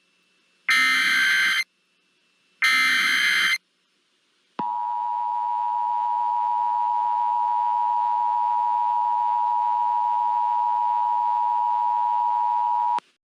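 Emergency Alert System SAME header data bursts: two harsh one-second bursts of digital data about a second apart, ending the three-burst header. After a second's pause comes the EAS two-tone attention signal, a steady electronic dual tone held for about eight seconds that cuts off sharply. It signals that a spoken emergency alert is about to be read.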